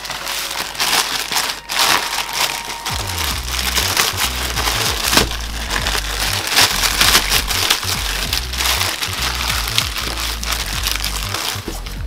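Plastic courier mailer bag crinkling as it is handled and pulled open, over background music whose bass line comes in about three seconds in.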